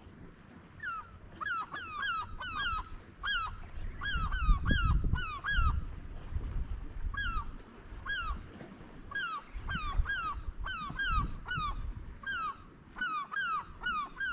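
Birds calling: a long run of short, hooked calls, several a second in bursts, over low wind rumble on the microphone.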